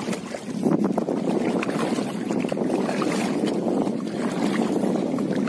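Shallow seawater sloshing and splashing steadily around legs wading across a rocky reef flat.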